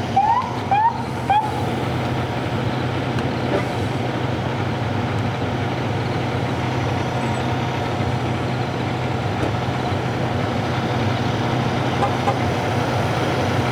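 Steady low engine hum of a large vehicle running in place, with even traffic-like noise over it. Three short rising chirps come in the first second and a half.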